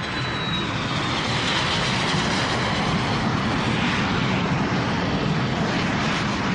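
Jet airliner taking off and climbing overhead: a loud, steady engine roar with a high whine that falls slightly in pitch during the first second.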